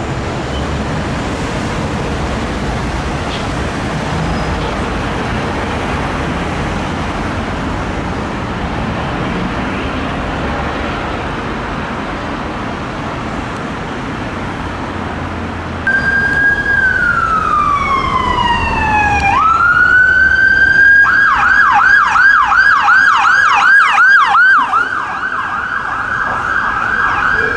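A steady rumbling background noise, then about two-thirds of the way in an ambulance siren cuts in sharply and is the loudest sound. It gives a slow falling wail, a rise, a fast yelp of about three sweeps a second, and then a steady high tone near the end.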